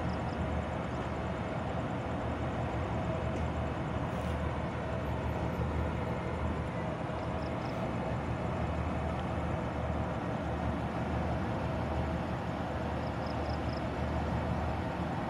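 Hitachi diesel-electric locomotive running steadily as it rolls slowly in with its train: a low engine drone with a steady hum over it.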